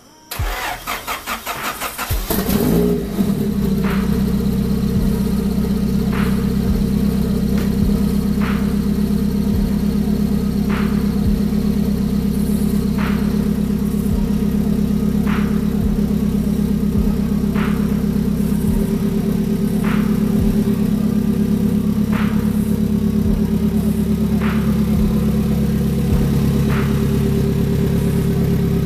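Honda Prelude four-cylinder engine cranked by the starter for about two seconds, catching and settling into a steady idle: the first start after a new timing belt and water pump, a check that the engine runs. A faint tick comes about every two seconds over the idle.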